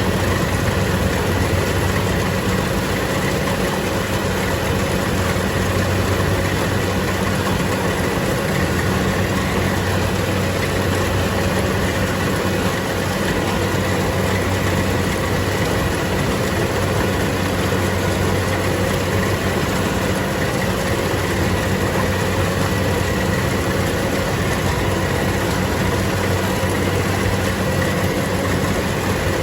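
Engine of a rice-harvesting machine running steadily, a constant unbroken drone.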